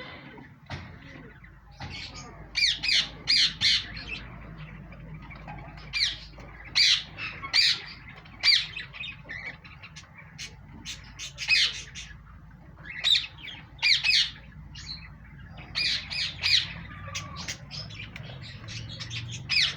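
Domestic poultry squawking: repeated short, harsh, high-pitched calls coming in quick clusters of two to four, every second or two, over a low steady background hum.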